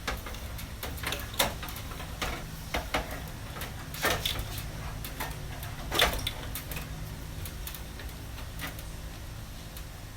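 A computer power supply being handled and fitted into a metal PC case: scattered clicks and knocks, the loudest about 1.4, 4 and 6 seconds in, over a low steady hum.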